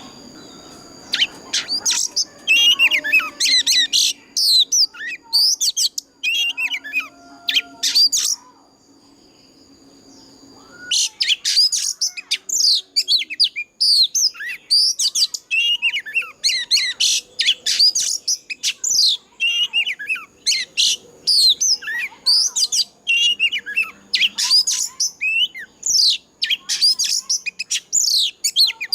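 Oriental magpie-robin singing a fast, varied song of high whistled and chattering notes, breaking off for a couple of seconds a little before the middle and then resuming in a denser run.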